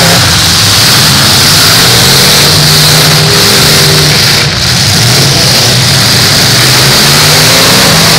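Several full-size demolition derby cars running loudly, their engines revving up and down in overlapping pitches as the cars push and spin their wheels on the wet track.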